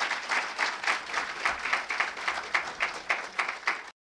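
Audience applauding, the clapping cut off abruptly near the end.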